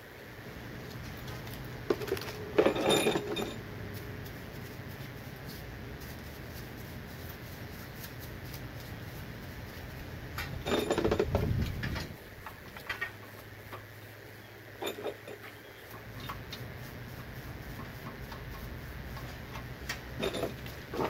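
Metal clinks and clatter from hands and tools working on a stripped engine block, in two louder bursts about two and eleven seconds in, with scattered small ticks between.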